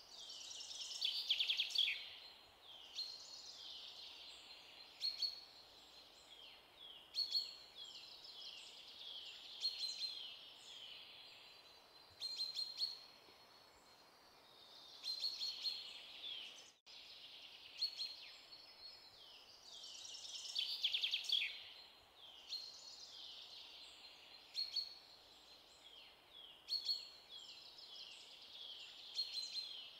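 Birds chirping and calling in short bursts of quick, falling chirps. The same stretch of birdsong repeats about every twenty seconds, like a looped background track.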